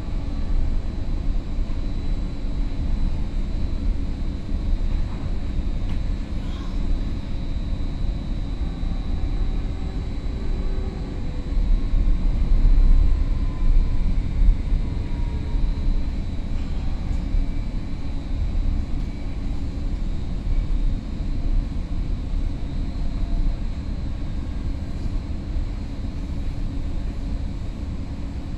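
Caltrain Stadler KISS electric multiple unit heard from inside a passenger car while under way: a steady low rumble of the running train, with a faint steady high whine above it. The rumble swells for a few seconds about midway, as the train crosses a road crossing.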